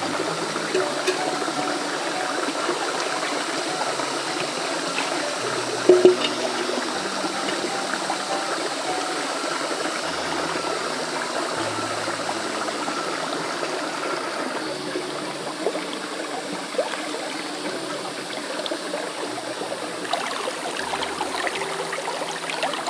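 Steady sound of running water, like a stream, with a single sharp knock about six seconds in.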